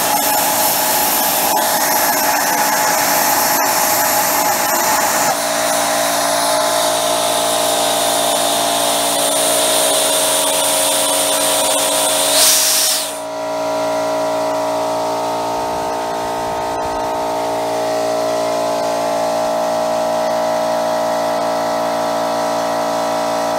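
Homemade propane micro jet engine (a turbocharged blow-torch driven by a high-velocity air jet) running: a loud steady rushing jet noise with several whistling tones. About halfway through the pitch sweeps sharply upward and the hiss drops away, leaving a steadier whistling drone.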